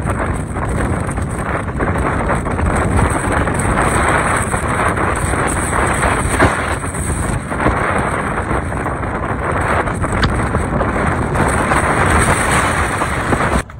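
Loud, steady wind noise buffeting the microphone on an open beach, a dense rushing hiss that cuts off abruptly near the end.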